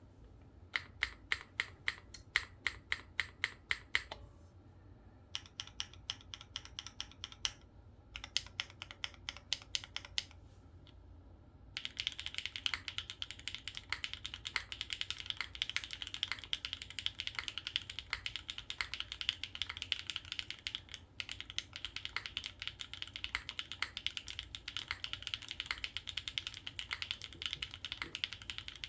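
Custom 60% mechanical keyboard with Gateron Deeping switches in a polycarbonate plate, no foam, and GMK keycaps: three short runs of evenly paced keystrokes, about five a second, with pauses between them, then from about twelve seconds in, continuous fast typing.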